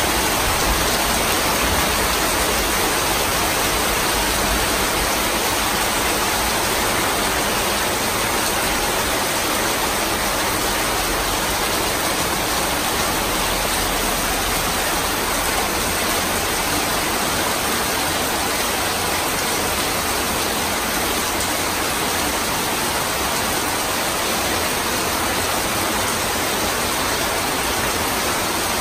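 Heavy rain pouring down steadily onto corrugated metal roofs, with water running off the roof edges: an even, unbroken downpour.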